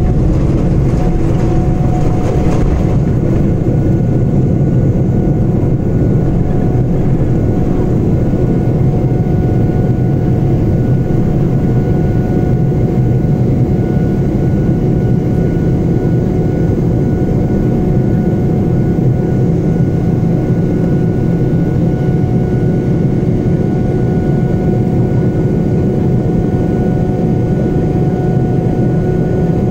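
Boeing 777 jet engines at takeoff thrust, heard inside the cabin beside the engine: a loud, steady rumble with a steady whine over it. A rougher rumble of the wheels on the runway dies away in the first few seconds as the aircraft lifts off.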